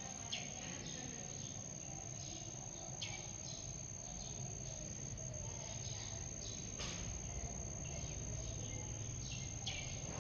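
Insects trilling: one steady, high-pitched unbroken tone, with shorter rasping chirps repeating about twice a second over a low rumble. A single sharp click comes about two-thirds of the way through.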